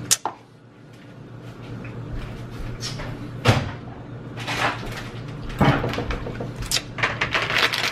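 Kitchen cupboard sounds: a sharp click as a door opens, then scattered knocks and clatter as things are moved about, with a quick run of small clicks near the end.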